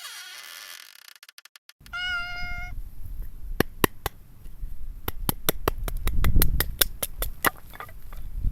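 A short, steady meow, then a wood fire crackling with irregular sharp pops over a low rumble.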